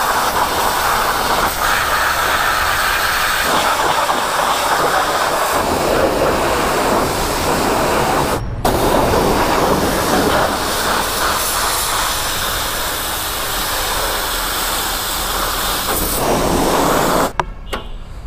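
High-pressure washer jet spraying water over a motorcycle, a loud steady hiss whose tone shifts as the spray moves across the bike. It breaks off for a moment about eight and a half seconds in and stops shortly before the end.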